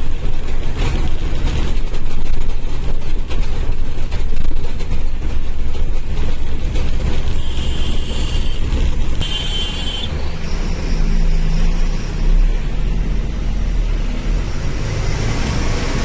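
Truck engine running at low revs with road noise, heard from inside the cab as the truck rolls slowly downhill. Two short high-pitched beeping tones sound a little past halfway.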